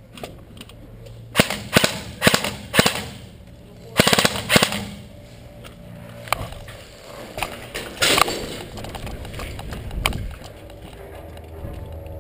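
Airsoft guns firing short rapid bursts of sharp snapping shots, several bursts in the first five seconds, then a couple of scattered shots later on.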